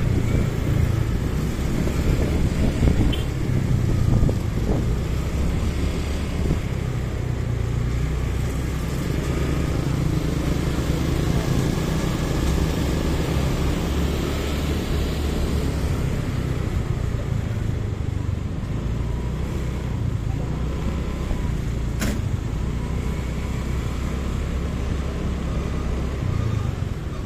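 Motorcycle engine running steadily under way, with road noise, while riding through town traffic. A single sharp click comes about three-quarters of the way through.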